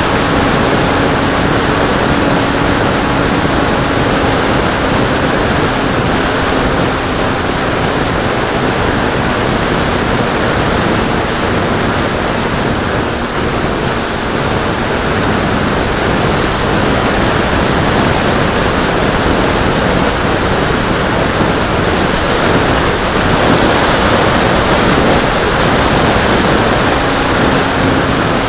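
Steady wind rush over the microphone of a wing-mounted camera on a Bixler 2 foam RC plane in flight. Under it runs the hum of the plane's brushless electric motor and propeller, which fades in the middle and comes back near the end.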